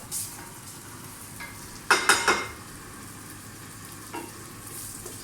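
Guanciale sizzling steadily as it fries in lard in a pan. About two seconds in, a utensil clatters against the pan in three quick hits, the loudest sound here, and there is a lighter knock near four seconds.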